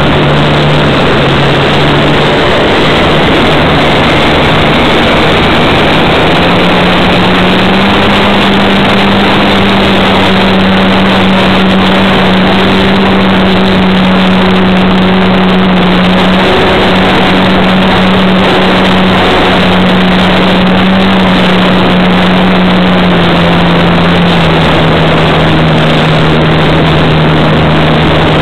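RC model airplane's motor and propeller heard from a camera mounted on the plane: a loud steady drone over a rush of wind noise. The pitch rises a little about a quarter of the way in, then eases back down near the end.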